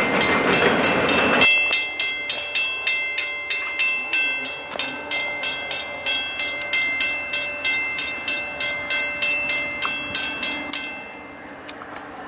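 Freight cars rolling over the rails for about a second and a half, cut off suddenly. Then a railroad bell rings steadily, about three strikes a second, as the train approaches a road crossing, and stops about 11 seconds in.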